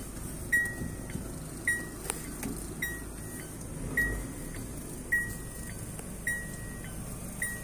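A car's electronic warning chime beeping steadily: a single high tone about once a second, seven times, each one fading quickly. Under it there is a low steady rumble from the vehicle.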